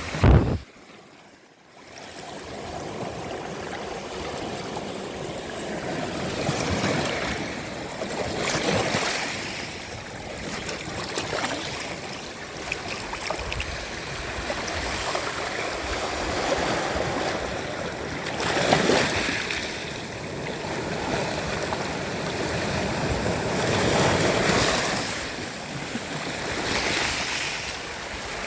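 Sea waves washing onto a sandy beach: a steady rush of surf that swells and falls every few seconds. Right at the start there is a brief loud thump, then about a second and a half of much quieter sound before the surf returns.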